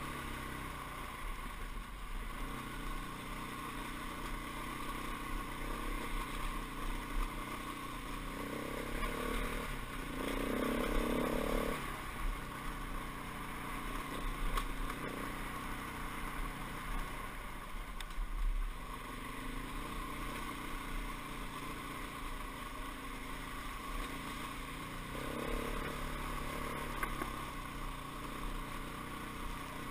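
Dirt bike engine running steadily while riding along a rough dirt trail, louder for a couple of seconds about ten seconds in.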